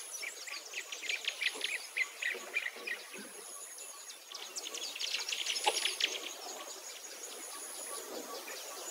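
Birds chirping in quick, scattered calls, with a thin, high insect buzz that comes and goes every second or so.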